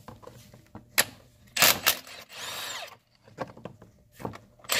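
Cordless impact wrench on the crankshaft pulley bolt of a Honda K24 engine, undoing the bolt: a short loud burst of hammering about a second and a half in, a brief whir as it spins, and another loud burst near the end.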